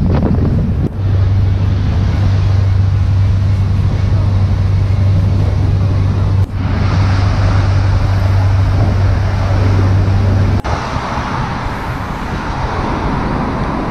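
A boat's engine drones steadily under wind noise on the microphone. About ten seconds in, the drone cuts off and road traffic with wind noise takes over.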